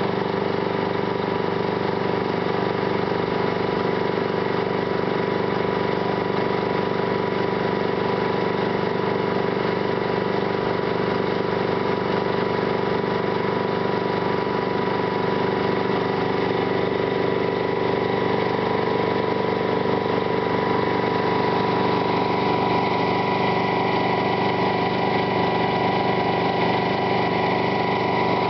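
Engine of an M715 fire truck's pumping rig running steadily at a constant speed, driving the water pump while the hose is spraying.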